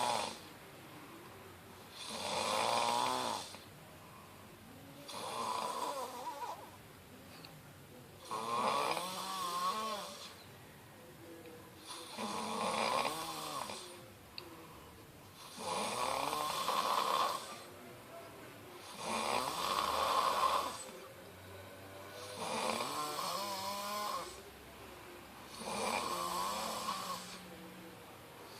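A man snoring steadily, one long snore roughly every three to four seconds, about nine in all.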